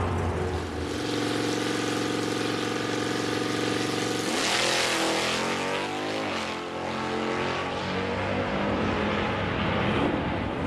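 Drag-racing cars' engines held at steady revs, then a sudden loud full-throttle launch about four seconds in, the engine pitch sweeping up and down as the car pulls away; engine sound carries on steadily afterward.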